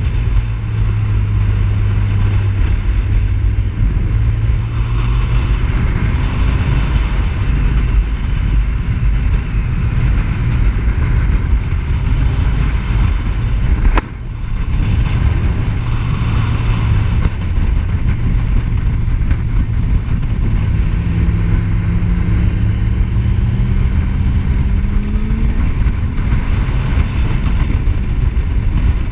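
Sport motorcycle engine running at road speed with wind rushing over the microphone, its note rising several times as the throttle is opened, most plainly in the second half. A single click and brief drop in level midway.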